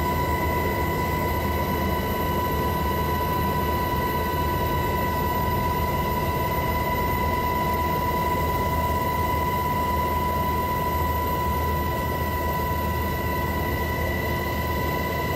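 Helicopter in flight heard from inside its cabin: a steady high whine over a low rumble and a rush of rotor and air noise, unchanging.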